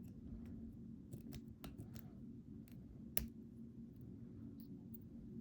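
Scattered light clicks and taps of small metal lock parts and tools being handled while a lock core is taken apart, with one sharper click about three seconds in.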